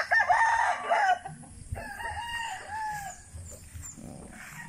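Gamefowl roosters crowing: a loud crow lasting about a second, then a softer second crow about two seconds in.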